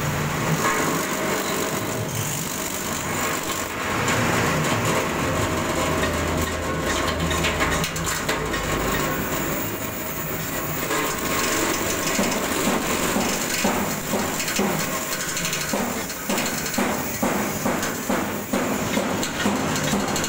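Forage chopper running and chopping green fodder stalks as they are fed into its hopper: a steady machine drone with a continuous rapid cutting clatter, which grows choppier in the last few seconds.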